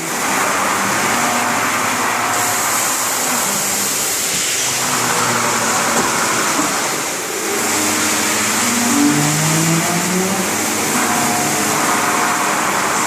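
CNC machine running: a steady loud noise like a router spindle or vacuum, with short tones that jump from pitch to pitch as the axis motors move.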